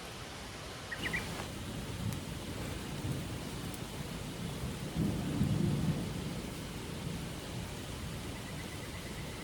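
Thunder rumbling over steady rain: the low rumble builds from about a second in, is loudest around the middle, then dies away. A brief high chirp sounds about a second in.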